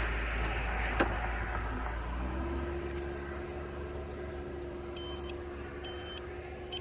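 Steady insect buzzing with a single sharp click about a second in, a low steady hum from about two seconds in, and two short high electronic beeps near the end.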